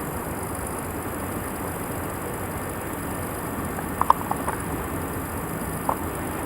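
Steady rumbling noise, with a quick cluster of short, sharp clicks about four seconds in and one more click near the end.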